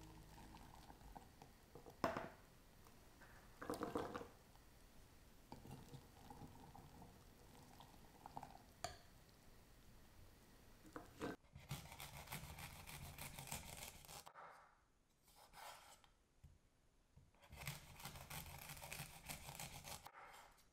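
Near silence, with a few faint knocks and taps of handling about two and four seconds in and again later, and a faint hiss that comes and goes in the second half.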